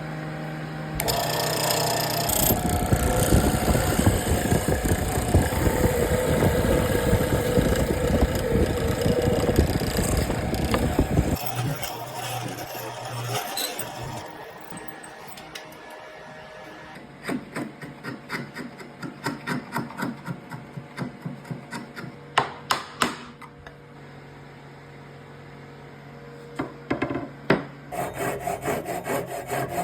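Hand tools working wood for mortise-and-tenon joinery: a long stretch of rapid back-and-forth hand-saw strokes, then a quieter spell with a run of sharp taps, and sawing strokes starting again near the end.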